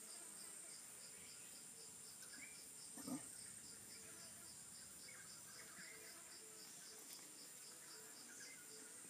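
Faint, steady high-pitched insect drone with a regular pulsing chirp a few times a second, and light rustling. A brief low murmur comes about three seconds in.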